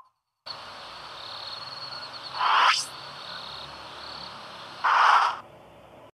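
Two whoosh transition sound effects, the first with a sharp rising sweep about two and a half seconds in, the second about five seconds in. Under them runs a steady hiss with a thin high tone, like a background ambience of crickets.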